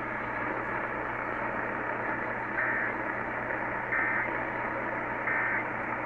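Radio static hiss from a SPARC radio, with three short warbling Emergency Alert System data bursts about 1.3 seconds apart in the second half: the end-of-message signal that closes an alert or test.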